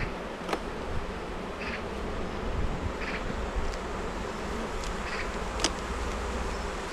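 Honey bees buzzing around an open hive, with a few sharp clicks scattered through.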